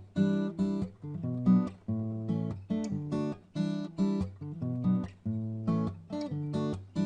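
Acoustic guitar strumming chords in a steady rhythm: the instrumental opening of a song, before any singing.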